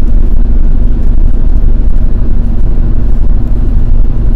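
Car cabin noise at highway speed: a steady low rumble of engine and tyres on the road, with a faint steady hum that fades out about halfway through.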